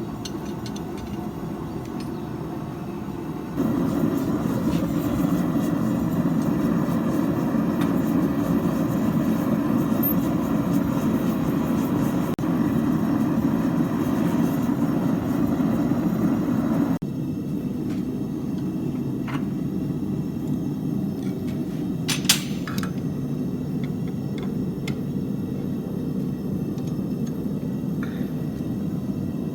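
Steady roaring noise of workshop machinery, with a few light metallic clinks; the roar jumps louder about three and a half seconds in and drops back abruptly at about seventeen seconds.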